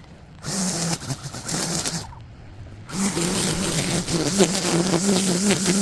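Small high-revving engine of a handheld lawn power tool running with a buzz, stopping for under a second about two seconds in and then running again.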